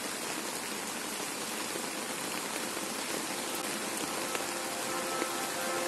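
Steady rain falling: an even hiss of many drops that slowly gets a little louder.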